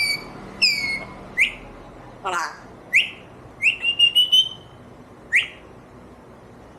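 African grey parrot whistling. It gives two short downward-slurred whistles, then sharp upward whistles, a wavering whistle that slides down low about two seconds in, and a trilled, held whistle around four seconds in.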